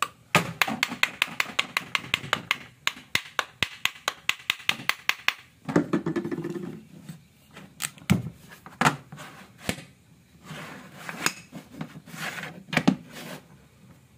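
Rapid light taps of a wooden tool handle on a wooden cross joint, about six a second for some five seconds. Then a short scrape of wood sliding on wood, and a few separate wooden knocks as the blocks are handled.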